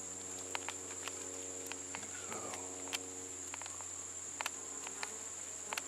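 Bees buzzing at a hive in a tree stump, a low hum that swells in the middle seconds, over a steady high-pitched insect trill. A few sharp clicks.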